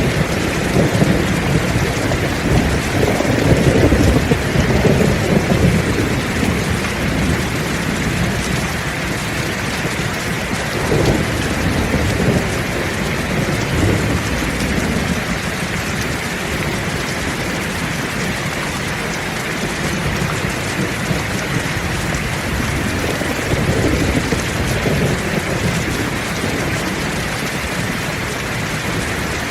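Heavy rain falling steadily, with rolls of thunder rumbling low through the first several seconds and swelling again about a third of the way in and near the end.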